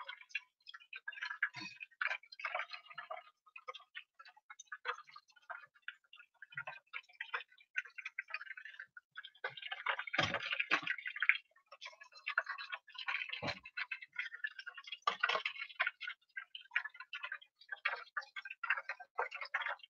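Battered cod deep-frying in a foil pan of hot oil, crackling and popping steadily, with a few dull knocks of metal tongs against the pan. The crackling swells around the middle as a piece is lifted and turned in the oil.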